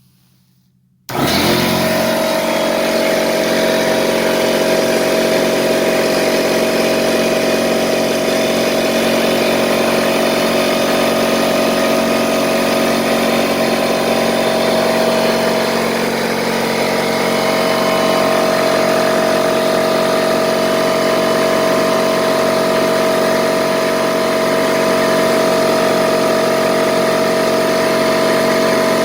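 Bostitch 6-gallon pancake air compressor switching on about a second in and running steadily and loudly, its motor and pump filling the tank.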